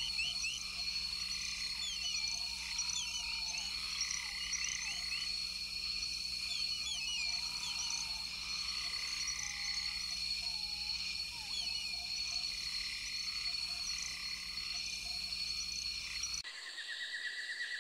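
A chorus of calling animals: a steady high drone, many quick high chirps, and a lower rising-and-falling call repeated about every two seconds. Near the end it cuts suddenly to a fast, high trill.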